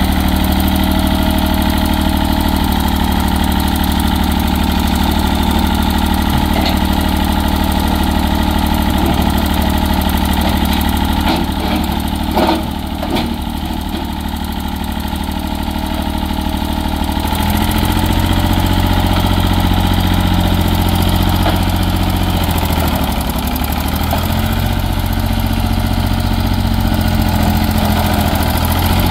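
Massey Ferguson 135 tractor engine running steadily as the tractor is driven with its front loader. A few clunks come about twelve seconds in, and the revs rise at about seventeen seconds, dipping briefly a little later.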